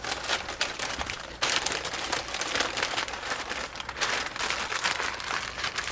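Newspaper crinkling and rustling as it is wrapped around a sweet potato, a dense run of small crackles that grows louder from about a second and a half in.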